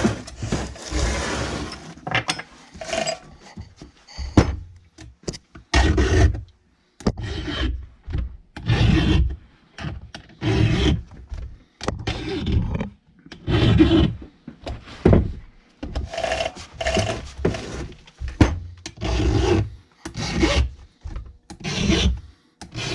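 Chainsaw chain being sharpened by hand: a sharpening tool scraping across the cutters in a run of separate rasping strokes, roughly one every second or so with short pauses, after a brief steady noise at the start.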